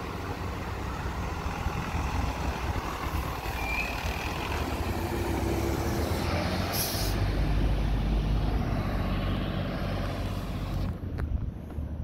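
A fire ladder truck's diesel engine runs as the truck pulls through the intersection and drives past close by, growing louder to its peak just past the middle. A short hiss of air brakes comes about seven seconds in.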